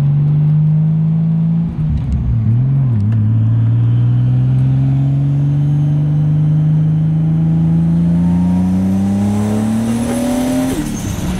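1998 Toyota Supra's turbocharged 2JZ-GTE inline-six, heard from inside the cabin while driving. There is a gear change about two seconds in. The revs then climb slowly and evenly for about eight seconds, and a second upshift comes near the end.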